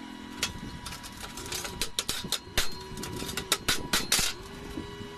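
Irregular sharp clicks and knocks of metal on metal as tools are handled on a steel welding table, densest in the middle.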